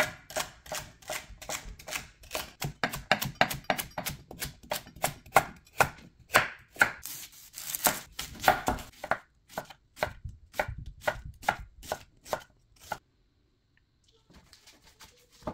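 Knife dicing vegetables, quick uneven chopping strokes about three a second; the chopping stops about thirteen seconds in.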